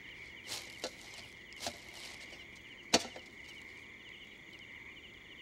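Crickets chirping steadily in the background while wrapping paper rustles and a metal cookie tin is handled, with a few short clicks and knocks and one sharp click about three seconds in.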